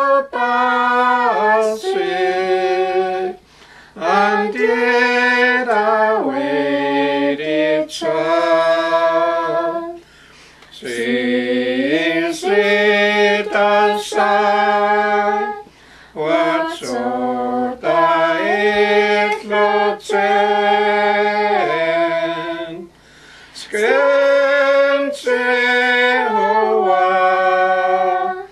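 Unaccompanied hymn singing in the Carrier (Dakelh) language: slow phrases of long held notes, with a short breath pause about every six seconds.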